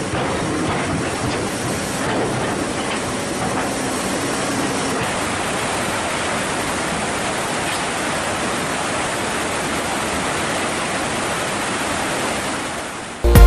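Steady rushing noise of a flood-swollen river mixed with hydraulic excavators running and working among the rocks. Loud music cuts in just before the end.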